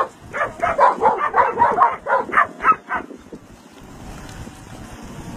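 A dog barking in a fast run of short, repeated yaps that stops about three seconds in, leaving a faint steady noise.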